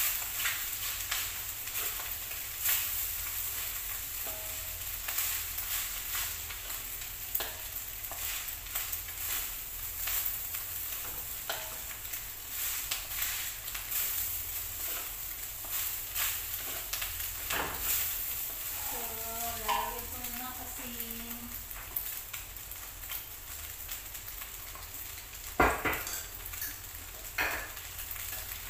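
Food stir-frying in a wok on a gas burner: a steady sizzle with the clatter and scrape of two wooden spatulas against the pan, and a few sharper knocks, the loudest about three-quarters of the way through.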